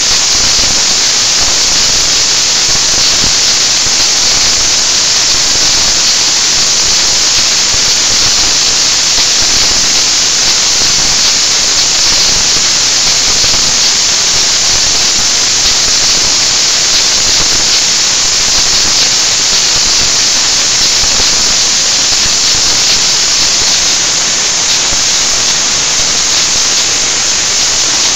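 BOPP adhesive tape slitting-rewinding machine running at speed, film feeding over its rollers and being slit and rewound: a loud, steady, high hiss that eases off slightly in the last few seconds.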